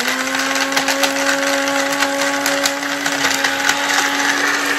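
Countertop blender motor starting up and running, blending a batch of sour candies: a brief rise in pitch as it spins up, then a steady hum with a rushing whir.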